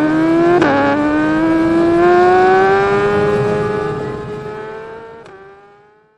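Honda Supra GTR 150's single-cylinder engine, breathing through an MVR1 aftermarket racing exhaust, accelerating under load. The exhaust note climbs, drops sharply at an upshift about half a second in, climbs again, and drops at a second upshift near the end as the sound fades out.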